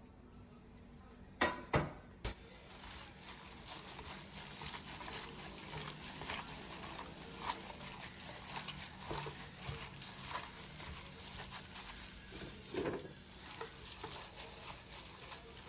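Close-up eating sounds: chewing and slurping with irregular small clicks and taps, after two sharp clicks a little over a second in.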